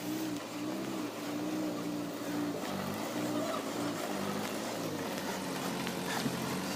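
Diesel engine of a rock-laden tipper truck running at low revs as the truck creeps backward down a rough dirt slope, its note wavering slightly.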